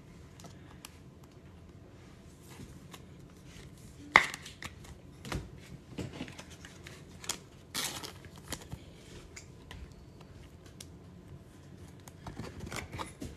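Trading cards and rigid plastic top loaders being handled on a table: soft sliding and rustling with scattered clicks and taps, the sharpest about four seconds in.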